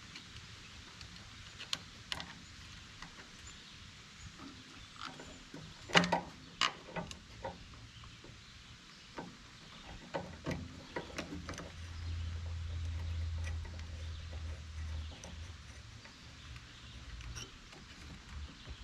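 Scattered clicks and knocks of small parts, screws and tools being handled while a push mower's air-cleaner housing is refitted, the loudest knock about six seconds in. A low hum comes in for a few seconds about twelve seconds in.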